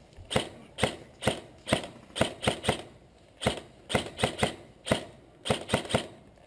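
Airsoft guns firing single shots, a string of sharp clicks at uneven spacing, sometimes two or three in quick succession.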